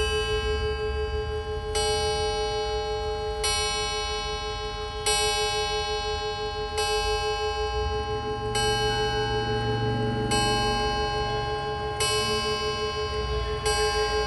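Antique French Henry pendulum wall clock striking nine o'clock on its thick coiled gong: nine hammer blows about 1.7 s apart, each ringing on with a long sustain into the next.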